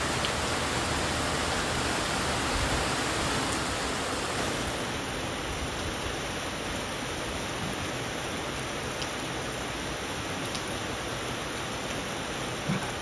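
Steady rain falling: an even hiss.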